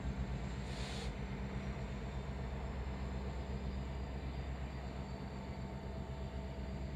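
Diesel freight locomotives running with a steady low rumble. A short hiss comes about a second in, and a faint high whine slowly drops in pitch.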